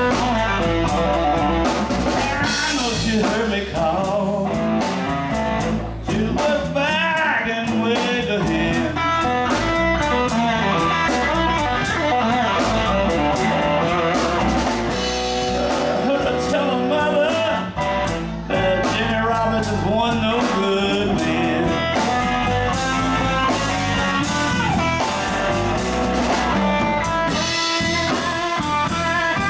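Live band playing: electric guitar, electric bass and drum kit together, loud and steady.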